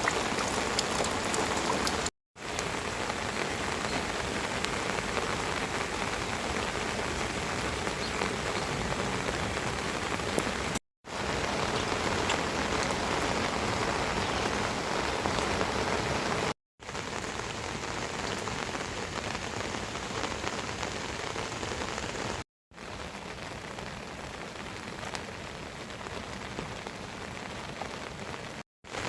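Steady rain falling, heard in several clips separated by brief silent cuts.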